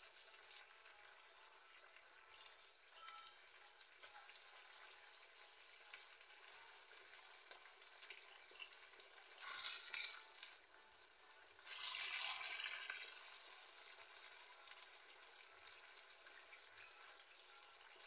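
Chicken afritada in tomato sauce sizzling faintly in a nonstick pan while it is stirred with a plastic spatula, with two louder surges of sizzling and stirring about ten and twelve seconds in.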